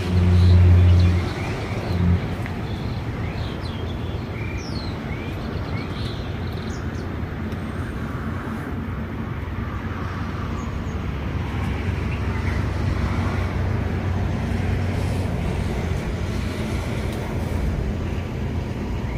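Steady low rumble of distant road traffic, with a louder engine hum in the first second.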